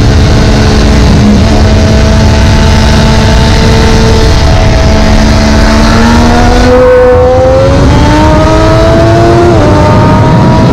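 2017 Triumph Daytona 675R's 675 cc inline-three engine under load at track speed through a long corner, revs held steady and then climbing, with an upshift near the end, over heavy wind rush.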